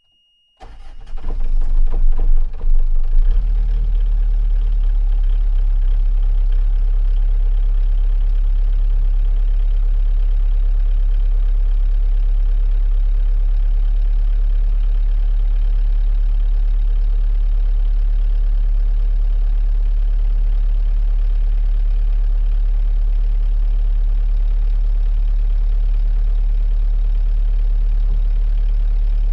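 A 45 ft sailboat's inboard diesel engine cold-starting, heard from inside the aft cabin. It starts about half a second in, runs unevenly for a couple of seconds, then settles into a steady, low idle.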